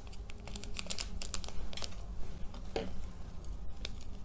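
Small seasoning sachet being crinkled and torn open by hand, a run of short crackles and ticks.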